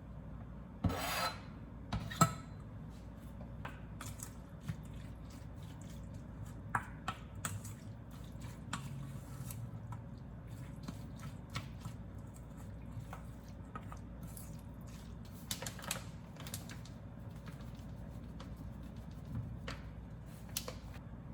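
Hand rubbing and scraping on a wooden surface, with a sharp knock about two seconds in and scattered light clicks and short scrapes after, over a steady low hum.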